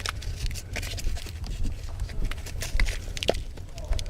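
Irregular scuffs, taps and knocks over a steady low rumble of handling noise on the microphone, as of someone moving about while holding the camera.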